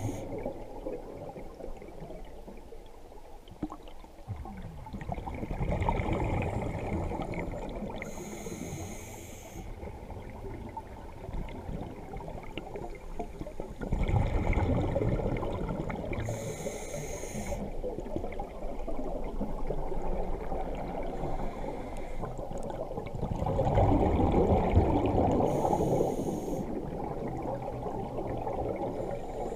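Scuba diver breathing through a regulator underwater: a rush of exhaled bubbles and a short hiss of the regulator, repeating as three breaths about eight seconds apart.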